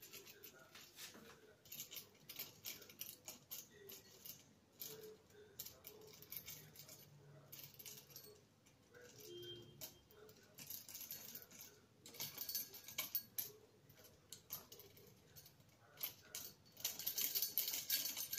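Small metal bell on a budgie's perch jingling and clinking as the bird pecks and nudges it, in irregular bursts of tinkling. The longest and loudest run comes near the end, as the bell swings.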